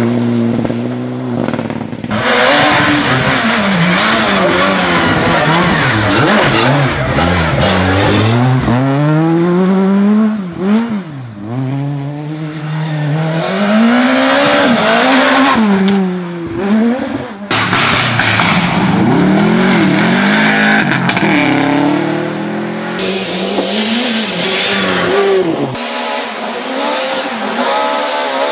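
Rally car engines driven hard on gravel stages, revving high and dropping again and again through gear changes as several cars pass in turn. The sound changes abruptly a few times, about two seconds in, and again past the middle and near the two-thirds mark.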